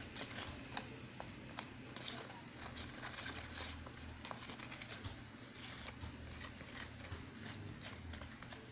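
Small plastic spoon stirring thick paste in a tub: irregular soft scrapes, clicks and squelches as it works through the paste and against the sides.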